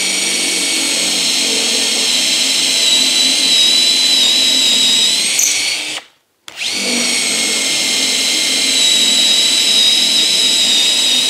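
Festool C18 brushless cordless drill driver on speed 2 boring a 12 mm brad point bit into oak: a steady high motor whine that cuts out for about half a second about six seconds in, then starts again. The bit cuts without strain, "absolutely effortless".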